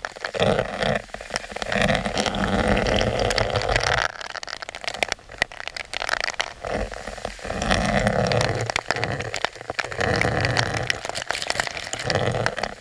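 Waterfall water pouring and splashing onto and around a camera held in the falling stream, an uneven rushing patter that dips briefly about four seconds in.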